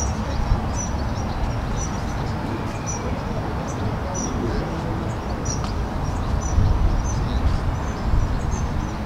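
Small birds chirping in many short, high notes, over a steady, uneven low rumble.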